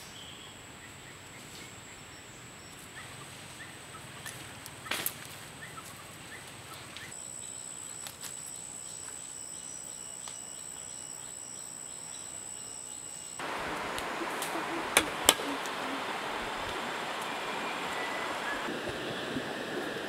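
Forest background with a steady high-pitched insect drone and a few sharp snaps or knocks, a cluster about five seconds in and two louder ones about fifteen seconds in; the background shifts abruptly twice.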